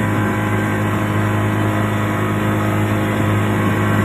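Boat engine running at a steady speed with a constant, even hum.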